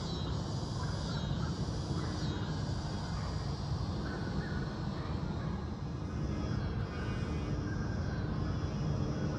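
Crows cawing a few times over a steady low background rumble.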